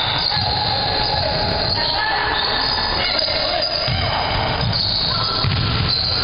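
Basketball players' shoes squeaking on a gym court floor in many high, shifting squeals, with a ball bouncing now and then.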